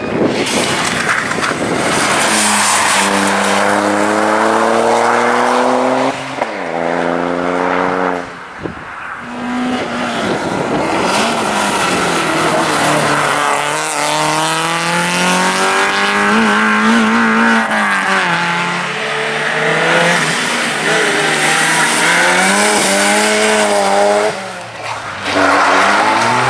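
Rally car engines at full throttle through tight bends, the pitch repeatedly climbing as they rev and dropping at gear changes and lifts, as several cars pass one after another. Tyres squeal in the corners.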